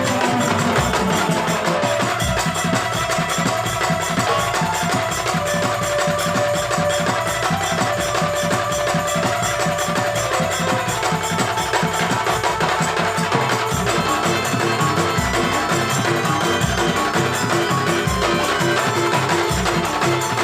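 Instrumental music with busy percussion keeping a fast, even beat under held melodic notes; a repeated pulsing note enters in the last few seconds.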